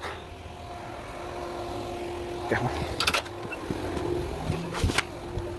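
A steady motor hum with a faint, even whine, and two sharp clicks, one about halfway through and one near the end.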